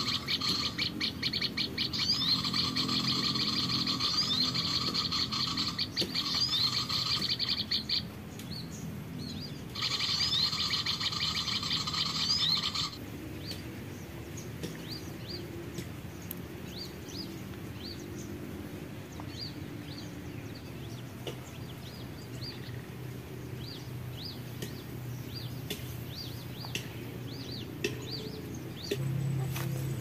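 Bird-call lure playing a recording of small songbirds chirping loudly and continuously. It breaks off for about two seconds after eight seconds, resumes, then cuts off abruptly about 13 seconds in. For the rest of the time, scattered short high chirps come and go at a lower level.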